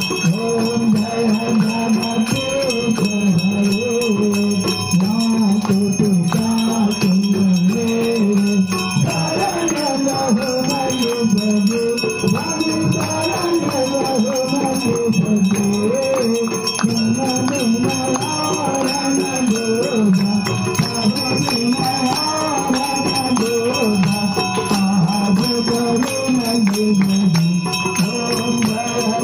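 A Hindu aarti hymn to Vishnu, a melody that runs without a break, with bells ringing steadily underneath.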